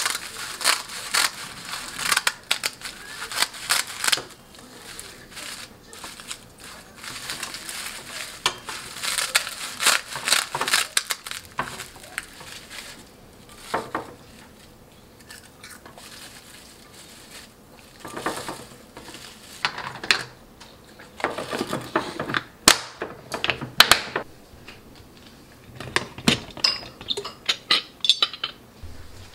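Dry sheets of laver (gim) crackling and rustling as they are handled and stacked, with scattered clinks and knocks of a stainless tray and a glass container. A few sharper clicks stand out in the latter part.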